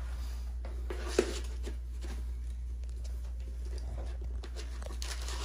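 Faint rustling and tapping of hands and tools working grasscloth wallpaper against a wall, with one sharp click about a second in, over a steady low hum.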